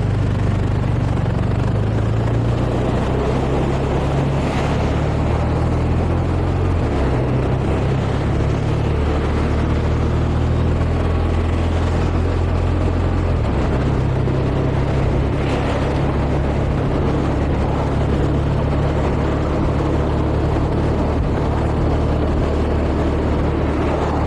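Motorcycle engine running while riding in traffic. Its low hum shifts in pitch a couple of times. Steady wind and road noise run over the microphone.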